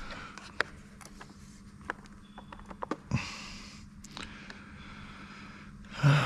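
Scattered light clicks and taps as insulation-tester probes and leads are handled on a battery module, with two short breaths through the nose, about three seconds in and near the end, over a faint steady hum.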